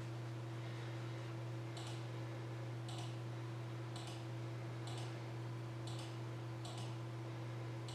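Crisp clicks of a computer being worked, about one a second and some in quick pairs, over a steady low electrical hum.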